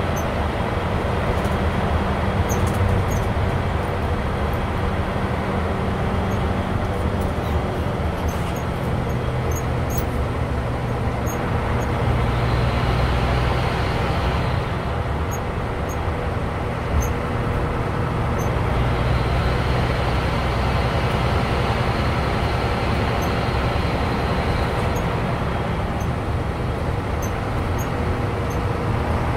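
Bus engine and road noise heard from inside the cabin while driving: a steady low drone whose pitch shifts about eight seconds in, with small ticking rattles.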